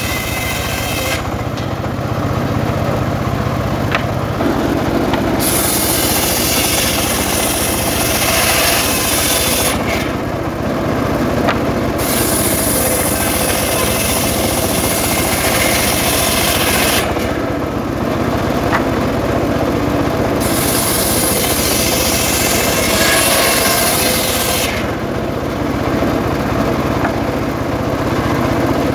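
Homemade bench circular saw ripping long timber boards. A harsh, hissing cutting noise comes in several stretches of a few seconds each as boards are fed through the large blade, with the saw's steady running hum in the gaps between cuts.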